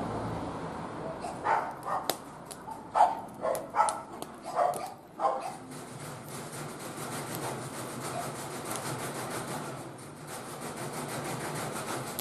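Wood fire crackling and popping in a barbecue grill. A series of about six short barks comes in its first half, between about one and a half and five and a half seconds in.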